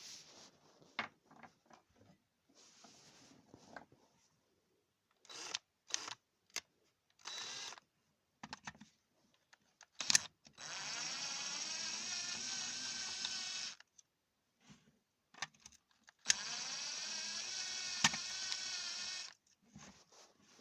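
A small electric motor runs twice for about three seconds each, with a slightly wavering pitch, separated by scattered clicks, taps and scraping of handling work.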